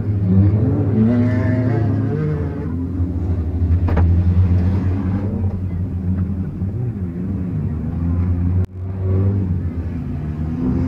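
Race-car engines revving and easing off on a dirt track, their pitch rising and falling, over a steady low engine hum, heard from inside a wreck-race car. A sharp click comes about four seconds in, and the sound briefly drops out a little before the end.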